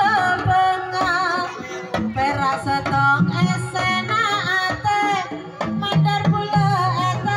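Live jaranan accompaniment: kendang hand drums beating steadily under a high, wavering, ornamented melody.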